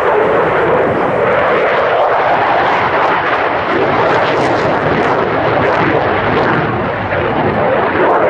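Loud jet noise from a Saab JAS 39 Gripen's single Volvo RM12 turbofan during a display pass, steady with a crackling edge.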